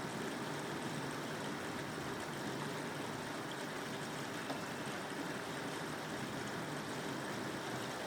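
Steady, even rain hiss with no clap of thunder.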